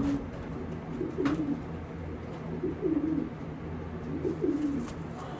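Domestic racing pigeons cooing, a series of short low coos repeating every second or so, with a brief click a little over a second in.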